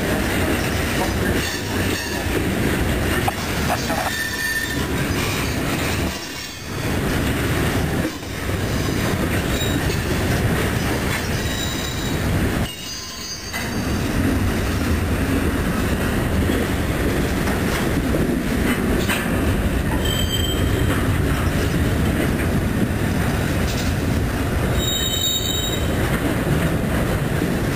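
Freight train of covered hoppers and flatcars rolling past close by. A steady rumble and clatter of steel wheels on rail dips briefly a few times, with faint high wheel squeal at times.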